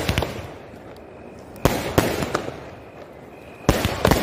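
Multi-shot aerial fireworks cake (a 30-shot sky-shot cake) firing: a sharp bang at the start, another about a second and a half later and a third near the end, each followed by a few quick cracks and a fading hiss.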